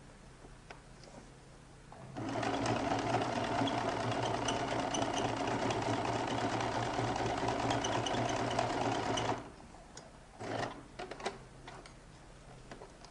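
Domestic electric sewing machine stitching a buttonhole: it starts about two seconds in, runs steadily for about seven seconds and stops suddenly, followed a second later by a few short sounds.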